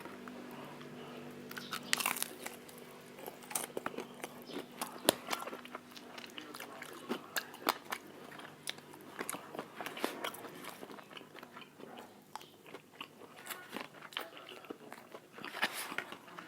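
Crunchy fried chicken, spicy Chickenjoy, being bitten and chewed close to the microphone: irregular crisp crunches and crackles of the coating.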